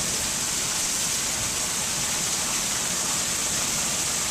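Heavy monsoon rain pouring down steadily, driven sideways by strong wind.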